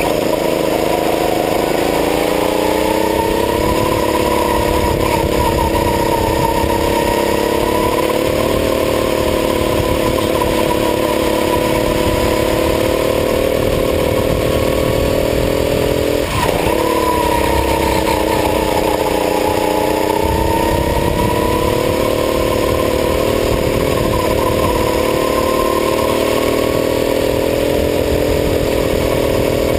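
Go-kart engine heard from a camera mounted on the kart, running hard through a lap. Its pitch climbs and sags with the track, with a sudden dip about sixteen seconds in, then climbs again.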